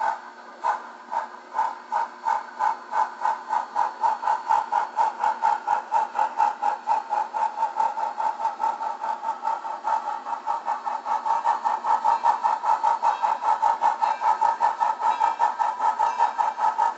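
Sound-equipped On30 model steam locomotive playing steam exhaust chuffs through its small speaker. The chuffs start slowly, about two a second, and quicken steadily to about four a second as the locomotive gets its ore train moving.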